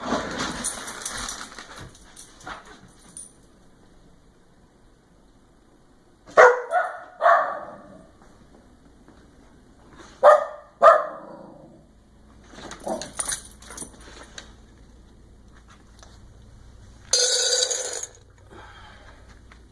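A dog barking in pairs: two loud barks about six seconds in, two more about ten seconds in, then a few fainter ones around thirteen seconds.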